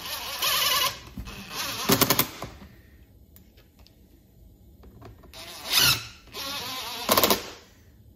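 Cordless impact driver run in several short bursts: its motor whines and it rattles with rapid hammering as it drives in the chainsaw's handle screws.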